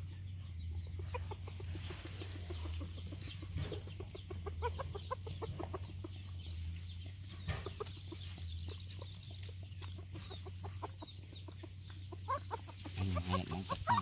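A mother dog eating from a bowl, with trains of short clicking sounds over a steady low hum. Near the end, puppies whimper.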